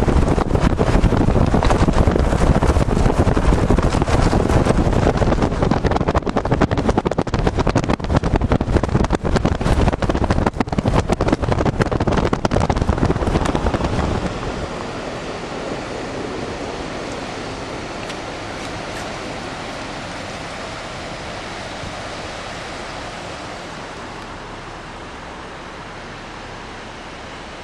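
Rushing river water with heavy wind buffeting on the microphone. About halfway through the buffeting stops, leaving a steadier, quieter rush of water.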